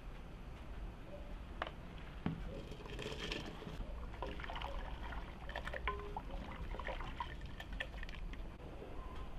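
A ladle stirring liquid in a large aluminium pot: sloshing and trickling, with a few sharp knocks and small clinks of the ladle against the pot.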